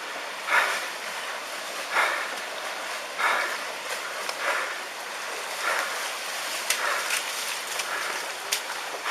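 Rushing tsunami floodwater: a steady wash of water noise, with a louder surge about every second and a quarter.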